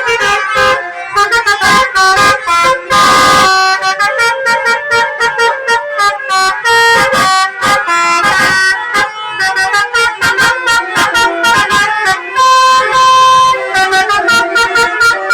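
Bus basuri telolet horns, multi-tone electric horns, playing a fast, choppy melody of short toots. A short burst of hiss comes about three seconds in.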